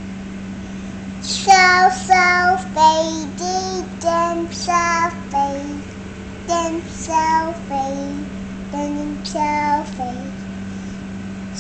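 A young girl singing a Chinese children's song note by note in short held notes, each about half a second long. She starts about a second in and stops about a second before the end, over a steady low hum.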